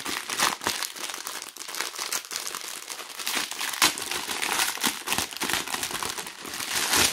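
Clear plastic packaging around a diamond painting kit's bundled drill bags crinkling and crackling as it is handled, in irregular crackles, loudest near the end.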